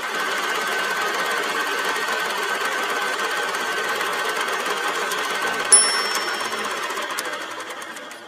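A fast, steady mechanical clatter with a sharp click near the six-second mark. It fades over the last couple of seconds.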